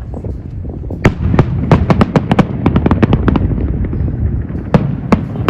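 Fireworks display: a rapid run of sharp crackling bangs starting about a second in, thinning briefly and picking up again near the end, over a steady low rumble.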